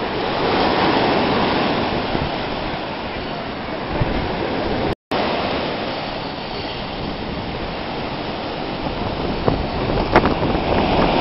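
Ocean surf washing up a beach: a steady rushing noise that swells about a second in. The sound cuts out for a moment about five seconds in.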